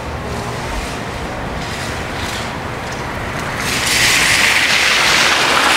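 Street ambience with a low rumble, then about two-thirds of the way in a louder, steady hiss of a car's tyres on the snowy road.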